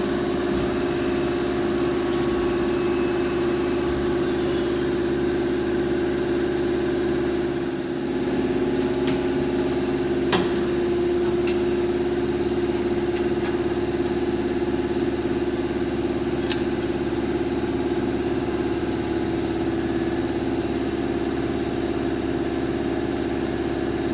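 Lathe running with a steady machine hum, with a few sharp clicks, the loudest about ten seconds in.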